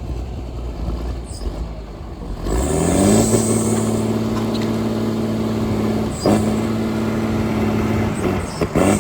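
Tigercat 630D log skidder's diesel engine running, revving up about two and a half seconds in and holding at a higher steady speed before dropping back near the end. A sharp knock comes partway through, and a few more come near the end.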